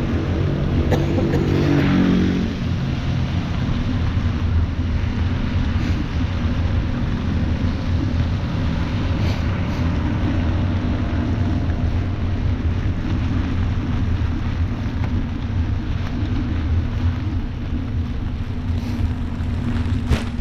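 Rain and street traffic heard from a moving bicycle: a steady low rumble under a hiss. In the first couple of seconds a vehicle passes, its engine note falling in pitch.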